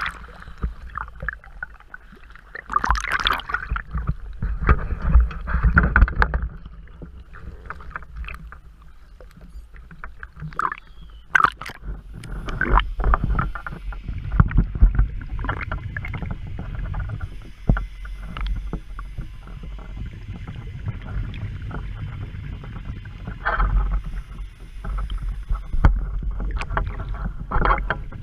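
Sea water sloshing and splashing around a waterproof action camera at the surface and just under it, with irregular knocks and a low rumble.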